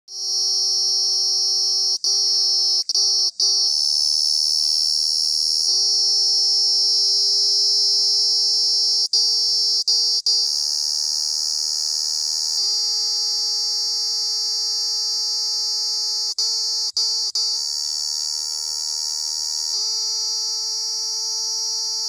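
Cicada singing: a loud, continuous high-pitched buzz that breaks off for an instant in clusters of three, about every seven seconds.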